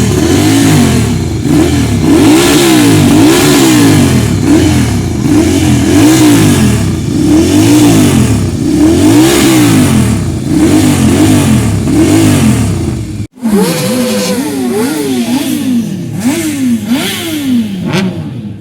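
Superbike engines being revved over and over, the pitch climbing and dropping roughly once a second with several revs overlapping. After a short break about thirteen seconds in, quicker revs follow, a little quieter.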